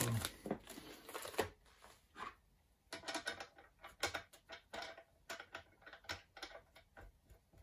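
Handling noise: a plastic bag crinkling briefly at first, then scattered light clicks and taps as a hand works at the headstock end of the lathe.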